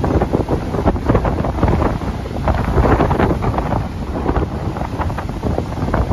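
Strong storm wind buffeting the phone's microphone in irregular gusts, over the steady noise of heavy surf.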